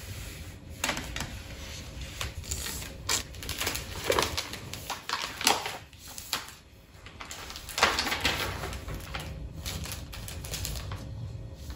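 Hands unpacking and setting up a decorative light, making irregular rustling and clicking, loudest about four, five and a half and eight seconds in.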